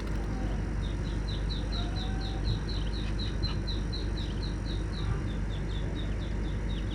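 Muscovy ducklings peeping: a rapid run of short, falling peeps, about four a second, starting about a second in, over a steady low background noise.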